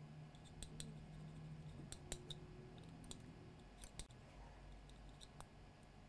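About a dozen faint, light clicks at irregular times from a small tool and a circuit board being handled, over a low steady hum.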